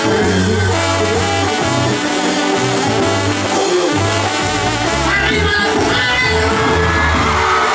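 Live banda sinaloense brass band playing: trumpets and trombones carry the melody over sustained tuba bass notes, with hand cymbals.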